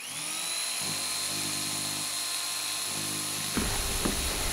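A small power tool's electric motor spins up and runs at a steady high whine. Low rumbling and a couple of knocks come in near the end.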